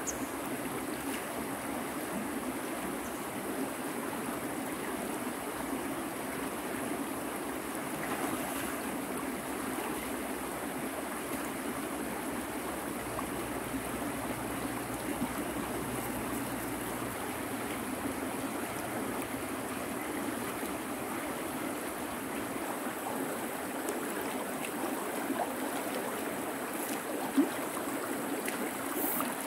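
River water flowing steadily, with one sharp click near the end.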